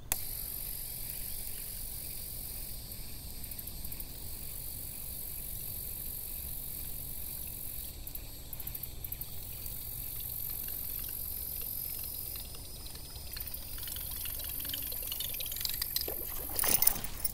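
Lake ambience: a steady high insect drone that drops out and returns a few times, over a low steady rumble. Near the end comes a short burst of splashing at the water's surface beside the boat.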